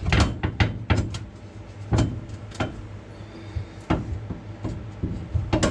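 Irregular metal clanks and knocks as an old subframe connector is pushed and wiggled loose under the car, over a steady low hum.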